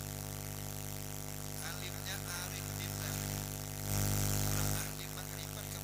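Steady mains hum and buzz from a public-address microphone system, with faint voice sounds in the middle and a short, louder rush of noise about four seconds in.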